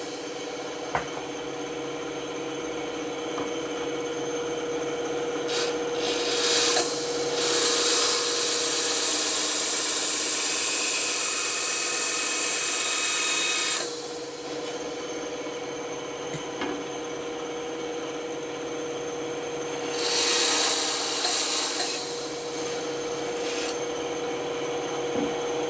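Band saw running with a steady hum while its blade cuts through wood: a loud hissing cut from about eight seconds in until about fourteen, and a shorter one starting about twenty seconds in.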